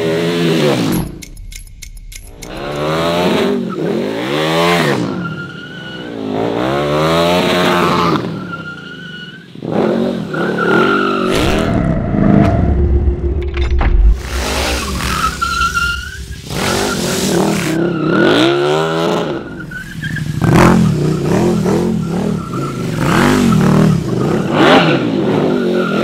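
KTM 1290 Super Duke R Evo's V-twin engine revving up and dropping back over and over as the bike drifts, with tires squealing at several points.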